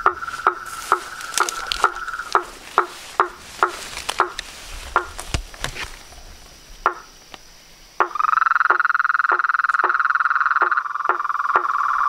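Frogs calling at a pond at night: a steady, high trilling call that breaks off about two seconds in and starts again near the end, over short knocking calls repeated about twice a second.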